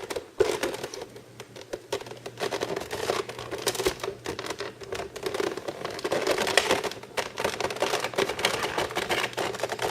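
Plastic packaging being worked open by hand: crinkling and rustling with many quick, irregular clicks and taps.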